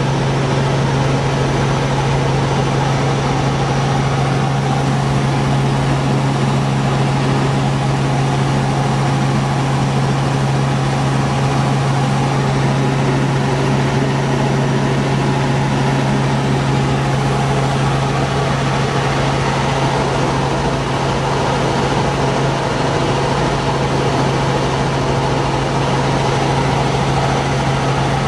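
Helicopter engine and rotor noise heard from inside the cabin in steady flight: a strong, steady low hum over a dense rushing noise that does not change.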